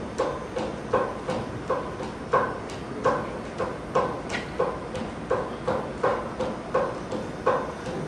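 Steady hollow knocks, about two a second and not quite evenly spaced, made live by hand as a stage sound effect. A short high squeak comes about four seconds in.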